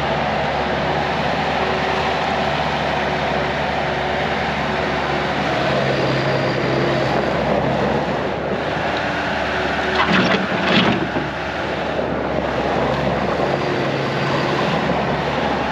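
Bobcat 185 Turbo skid steer's turbocharged engine running steadily, with a few sharp knocks about ten seconds in.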